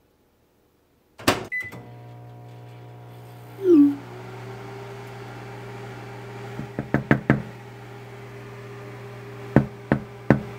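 A microwave oven switched on with a sharp click about a second in, then running with a steady electric hum while it heats microwave popcorn. A short, loud falling tone comes a few seconds in, and a few quick sharp clicks or knocks follow later.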